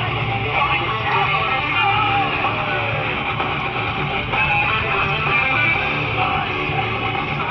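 Heavy metal music with distorted electric guitars playing continuously.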